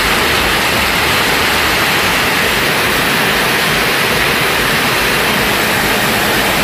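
Heavy rain pouring down onto a street and shop awnings: a steady, dense hiss with no let-up.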